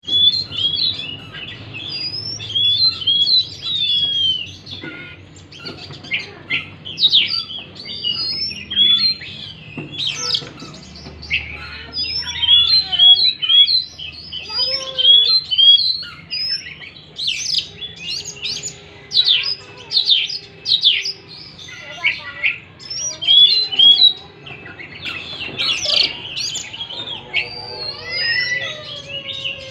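Oriental magpie-robin (kacer) singing a long, fast, unbroken stream of varied song: clear whistled notes and quick rising and falling slurs mixed with harsh, scratchy chattering notes.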